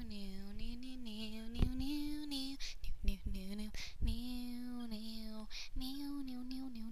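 A female voice singing a slow, wordless melody in long held notes, pausing twice.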